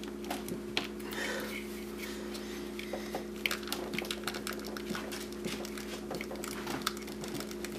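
Small plastic clicks and scrapes of a hand wiggling a stubborn coil-on-plug electrical connector on an engine's ignition coil, over a steady low hum.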